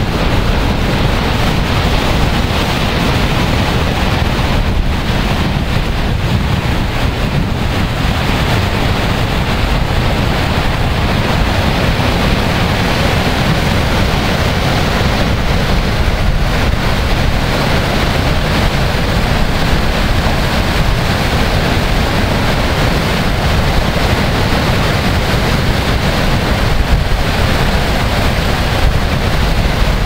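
Niagara Falls: the steady, loud rush of a huge volume of falling and churning water, unbroken throughout.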